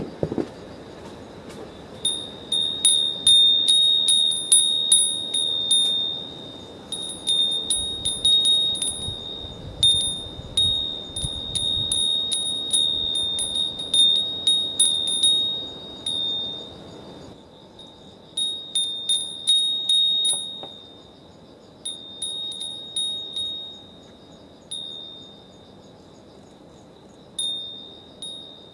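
Japanese fūrin wind bell ringing one high note in irregular clusters of quick strikes as the breeze swings its clapper, falling quiet briefly about two-thirds of the way through and again near the end. A faint steady hiss of outdoor background lies underneath.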